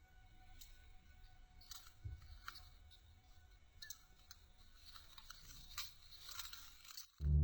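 Faint scattered clicks and rustles over a low hum. Loud plucked-string music starts abruptly near the end.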